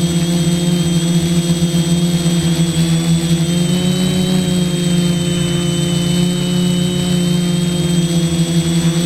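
Electric motors and propellers of an F450 quadcopter droning steadily in flight, a low hum with a high whine over it. The pitch shifts slightly a few seconds in as the throttle changes.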